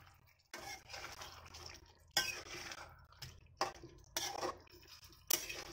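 A metal spoon stirring meat and potatoes in a thick curry in a metal wok, scraping and clinking against the pan several times.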